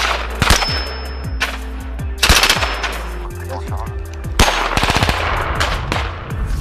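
Gunfire: several loud rifle shots and short bursts, each trailing off in a long echo, over steady background music.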